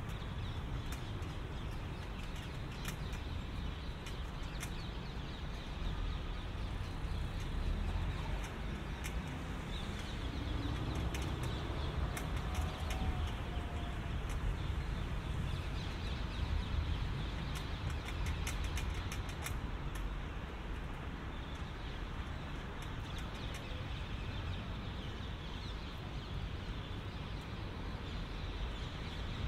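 Outdoor street ambience in the rain: a steady hiss over a low rumble, with scattered sharp clicks of footsteps on wet pavement and a faint bird call about twelve seconds in.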